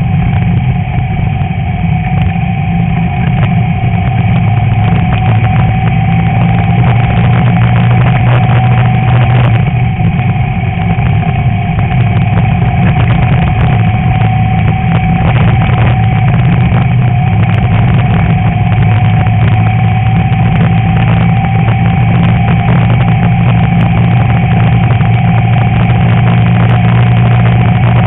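Class 11 VW Beetle's air-cooled flat-four engine running at fairly steady revs under load, with frequent clattering knocks throughout.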